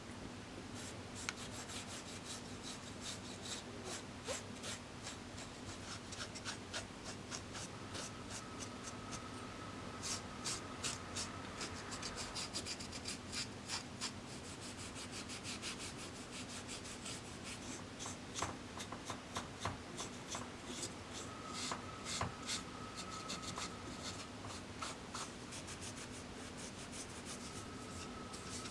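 Wood being worked by hand: short scraping strokes, a few per second, in irregular runs with pauses, over a faint steady hum.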